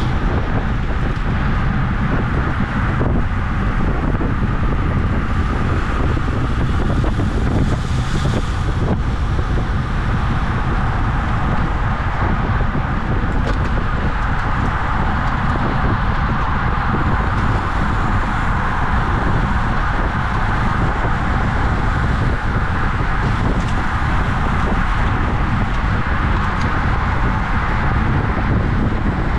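Steady wind rush buffeting the microphone while a road bike is ridden at race speed.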